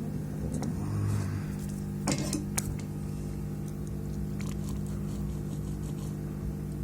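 Small tools clicking and clattering on a workbench about two seconds in, over a steady electrical hum.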